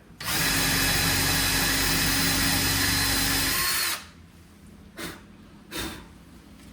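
Power drill running steadily for about three and a half seconds as it bores out a hole for a window lock bolt, then winding down. Two short knocks follow.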